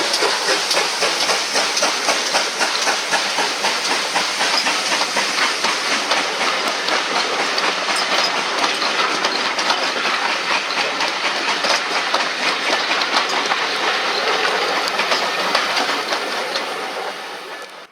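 GWR Large Prairie 2-6-2 tank steam locomotive 5199 running with its train: a dense clatter of wheels on rail joints and hissing steam, fading away near the end.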